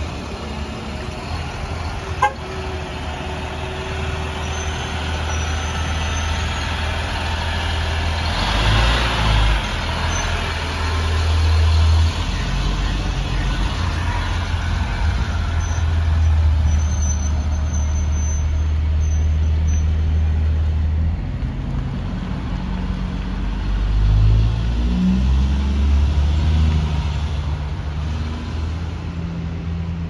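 Blue Bird Vision school bus's Caterpillar C7 inline-six diesel pulling away and driving past, its low engine note stepping up and down several times as it moves off. A single sharp click comes about two seconds in, and a brief rush of hiss follows at about eight to ten seconds.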